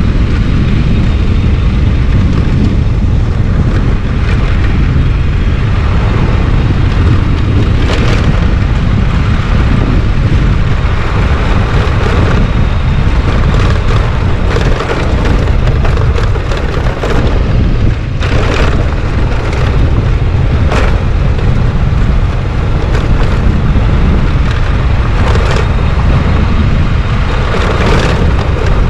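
Wind buffeting and rumbling on the microphone of a moving motorcycle on a gravel road, with the bike's running and tyre noise beneath and a few sharp crackles along the way.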